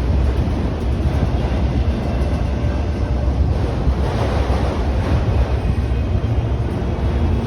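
Autorack freight cars rolling past: a steady rumble of wheels on rail, with wind buffeting the microphone.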